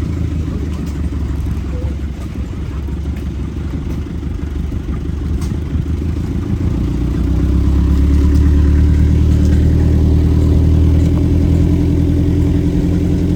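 A vehicle engine running steadily while driving off-road, getting louder about seven seconds in.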